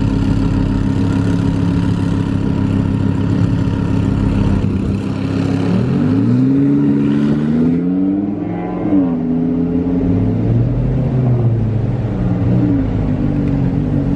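Car engine running steadily at low revs, then revving up and falling back twice, about six and about eight to nine seconds in. Heard from inside a following car.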